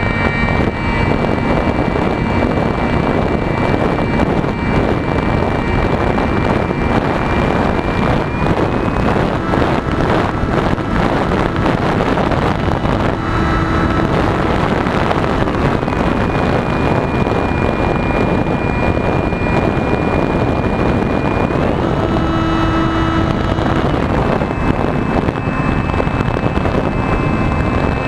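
Electric motor and propeller of a radio-controlled plane in flight, a thin whine under heavy wind rush on the microphone. The whine rises in pitch about a third of the way in, settles back, then climbs sharply near the end before dropping again, following the throttle.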